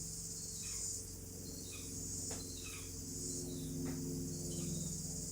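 Insect chorus, a steady high chirring that swells roughly once a second, with short falling chirps recurring, over a low steady hum.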